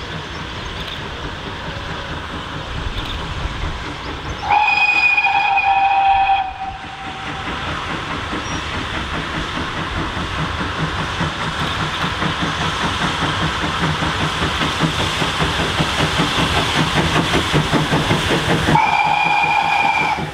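GWR 1400-class 0-4-2T tank locomotive No. 1450 approaching under steam, its exhaust beats and wheel clatter growing steadily louder. It sounds its whistle twice: one blast of about two seconds some four seconds in, and a shorter one near the end.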